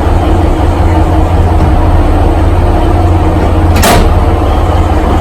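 Alishan Forest Railway train running on its track, a steady loud low rumble with a single sharp clank about four seconds in.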